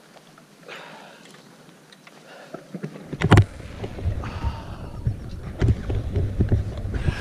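Rustling and light knocks of handling noise on a moving camera. About three seconds in comes a sharp knock, then an uneven low rumble of wind buffeting the microphone, with scattered clicks.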